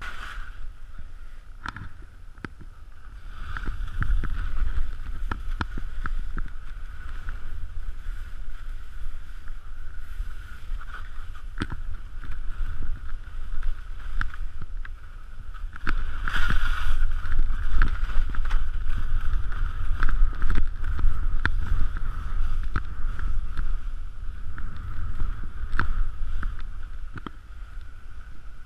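Skis scraping and hissing over wind-packed snow on a downhill run, with wind rushing over the microphone and a steady high whine underneath. It gets louder about four seconds in and again past the halfway point as speed picks up.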